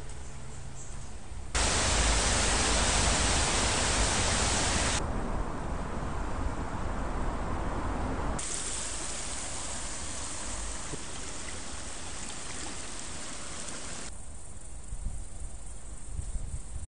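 Steady rushing noise of flowing creek water, jumping abruptly in loudness at each cut between clips; it is loudest for a few seconds near the start and again in the middle, and quieter near the end.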